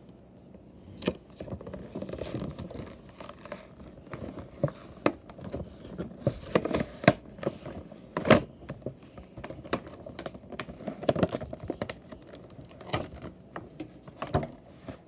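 Clear plastic blister packaging and its cardboard backing crinkling and crackling as hands work open a toy truck two-pack, with irregular sharp clicks and taps.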